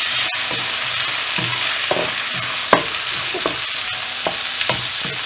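Chopped tomatoes and onions sizzling in hot oil in a kadai as they are sautéed, with a wooden spatula stirring and scraping across the pan in short strokes about every half second.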